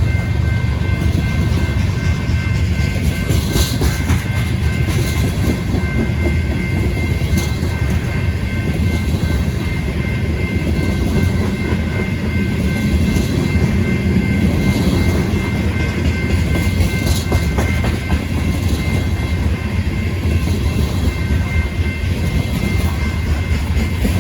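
A train rolling past: a steady heavy rumble of wheels and cars with occasional clicks over the rail joints. A thin, steady high whine runs with it and fades out about two-thirds of the way through.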